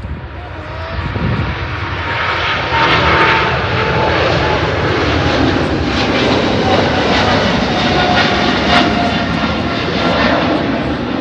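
Boeing 777-300ER's GE90-115B turbofans at full takeoff thrust during the takeoff roll, very loud. The noise swells over the first couple of seconds and then holds steady, with a rough rumble and a faint whine that slowly falls in pitch.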